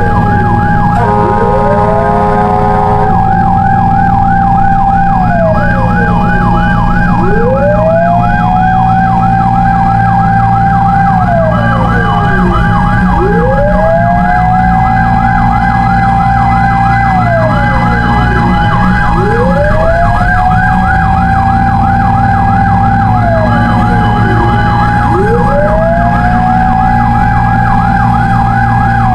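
Fire truck sirens running together: a slow wail that rises, holds and falls about every six seconds, layered with a fast yelp, over the steady drone of the engine. A horn sounds for about two seconds near the start.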